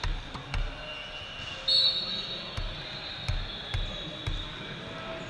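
Volleyballs thudding on the court floor at irregular intervals amid the hum of a large hall. A referee's whistle blows about one and a half seconds in and is the loudest sound.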